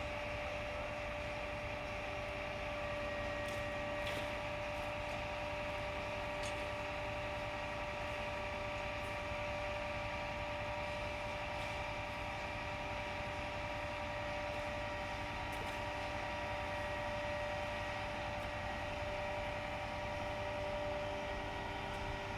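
Steady mechanical hum with a few constant whining tones over an even rush of noise, unchanging throughout, with a couple of faint clicks.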